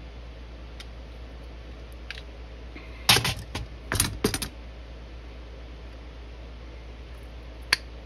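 Small metal parts clicking and knocking as a Quadrajet carburetor's choke housing is worked onto the carburetor body by hand. There is a cluster of louder clicks and scrapes a few seconds in and one sharp click near the end, over a low steady hum.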